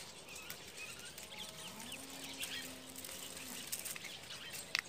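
Faint outdoor ambience with scattered bird chirps, a distant low drawn-out call that holds for about two seconds in the middle, and one sharp click near the end.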